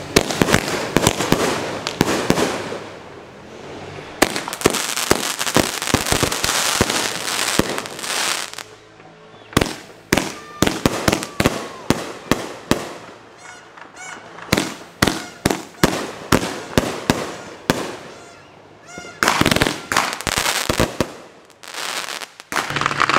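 Camel Toe consumer firework cake firing a long series of aerial shots that burst into crackling stars. A dense run of pops and crackles with hissing rushes gives way to separate sharp bangs, two or three a second, then a last loud volley before it stops.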